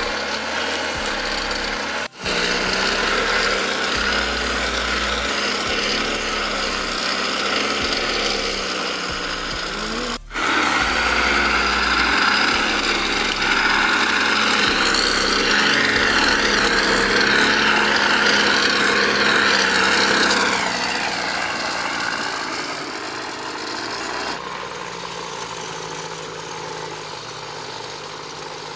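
Backpack brush cutter engine running at high speed while its homemade welded blade cuts grass and weeds, the engine note wavering under load. There are two brief dropouts about 2 and 10 seconds in. About 20 seconds in the sound falls away to a lower, quieter running, as if throttled back toward idle.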